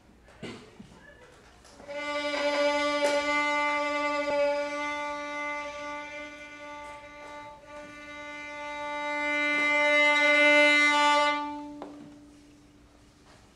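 Violin bowing one long sustained note on a single pitch, starting about two seconds in. It eases off in the middle, swells to its loudest near the end, then stops, leaving a brief ring.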